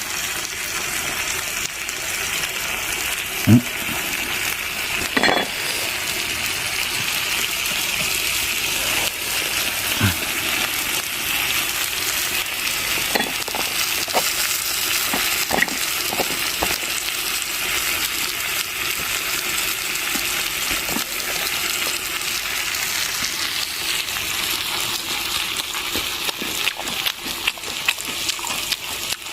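Peas frying and sizzling steadily in a small pot, with occasional clinks and knocks of a utensil against the pot as they are stirred.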